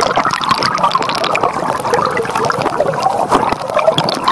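Water gurgling and bubbling over a phone's microphone as the phone is moved along under water, a dense continuous crackle of small bubble pops.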